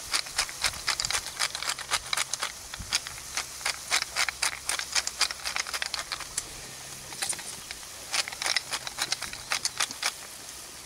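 A wooden hand-twisted spice mill grinding over a frying pan, a crunchy crackle in three bouts. Softer sizzling of food frying over a wood fire runs underneath.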